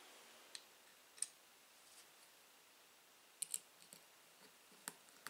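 A handful of faint, sharp clicks of small M3 machine screws being dropped into the holes of an Anet A8 3D printer's acrylic back plate, and of a small screwdriver meeting and starting to turn them.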